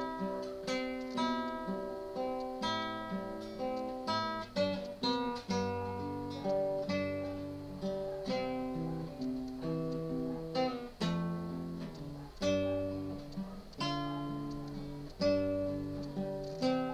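Acoustic guitar (violão) playing a hymn tune alone, chords strummed and plucked in a steady run with no singing.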